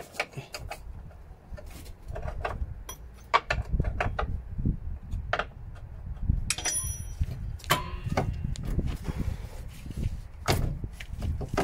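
Irregular metal clinks and knocks as a podger bar is worked against a car's lower suspension arm to line up its bolt holes, over low scraping and handling noise. A sharp knock comes about three seconds in, and a short run of ringing metallic clinks comes about six to seven seconds in.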